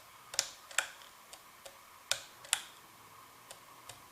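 Plastic Lasko ceiling fan turning slowly on low speed, ticking in a regular rhythm: a pair of sharp clicks about every two seconds, with fainter ticks between, over a faint steady hum.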